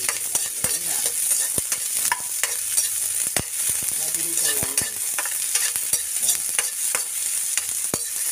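Chopped white onion sizzling and frying in hot oil in a wok, stirred with a spatula that clicks and scrapes against the pan many times at an irregular pace.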